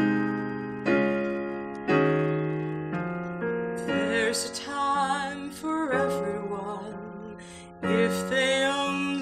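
A slow ballad on piano: chords struck about once a second and left to ring, then a woman's voice comes in about four seconds in, singing with vibrato over the piano accompaniment.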